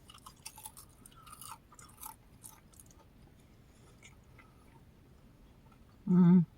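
Close-up chewing of food, with short clicky mouth sounds over the first few seconds, then quieter. Near the end a brief loud voiced hum, like an "mm".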